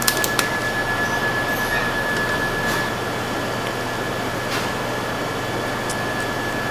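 Steady machine-like whirring noise with a thin, high, steady whine over it, and a few light clicks at the start.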